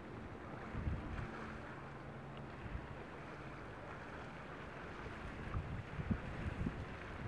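Wind buffeting the microphone in gusts, about a second in and again near the end, over a faint steady low hum.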